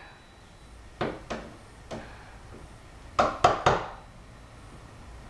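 Hand tools knocking and clinking against wood and metal: a few single knocks, then three or four quick ones about three seconds in.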